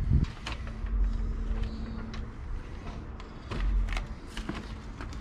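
Handling noise: a scattered series of light knocks and clicks with a couple of low thuds. A faint steady hum stops about two seconds in.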